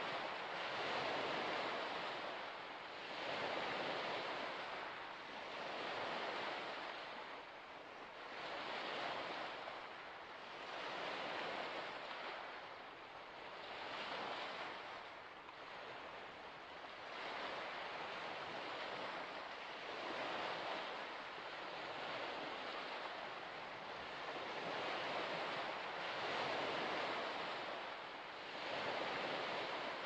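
Small waves washing onto a shore, the hiss of water swelling and falling back about every two to three seconds in a steady rhythm.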